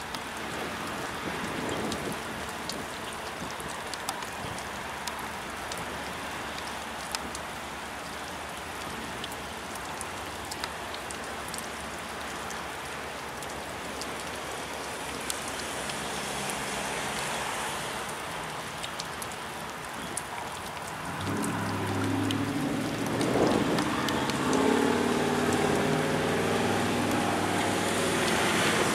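Steady rain falling, with scattered drops ticking close by. About two-thirds of the way through, the diesel engines of an approaching Union Pacific freight's lead locomotives come up over the rain and grow louder as the train nears.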